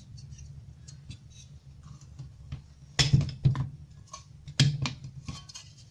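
Sheet-steel brackets holding the ferrite core halves of a CRT deflection yoke clicking and knocking against each other as they are handled and pressed together by hand. There is a handful of sharp knocks from about halfway through, over a low steady hum.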